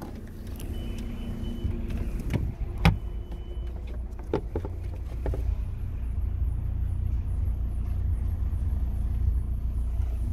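Steady low rumble around a parked car, growing louder in the second half, with a few sharp knocks and clicks from handling at the open boot; the loudest knock comes about three seconds in.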